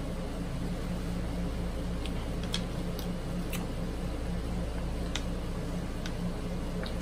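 Steady low hum of room background noise, with a few faint short clicks and crinkles as a plastic water bottle is picked up and drunk from near the end.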